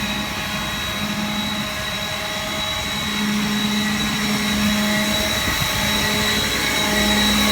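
PTO-driven Vanair air compressor on a Ford F-450 flatbed running together with the truck's engine: a steady mechanical drone with a constant high whine over a low hum.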